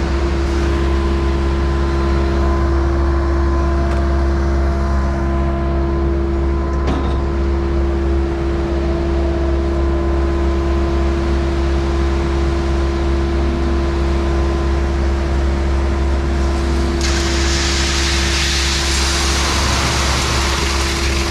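Heavy equipment engine running steadily with a constant low drone. About 17 seconds in, a hiss joins it and holds.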